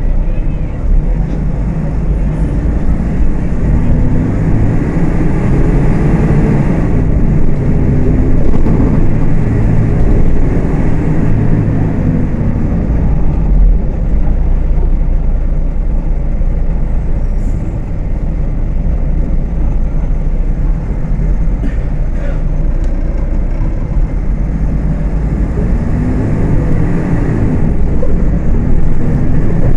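Diesel engine of a Volksbus 18.280 OTS city bus running under way, its revs climbing and falling as the bus pulls away and changes speed, with the engine pitch rising clearly a few seconds in and again near the end.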